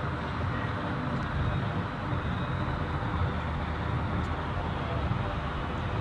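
Steady low background rumble and hiss with no distinct events.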